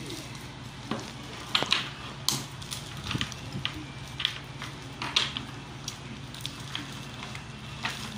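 A clear plastic bag crinkling and small toy puzzle pieces being handled on a table, heard as irregular short crackles and light clicks.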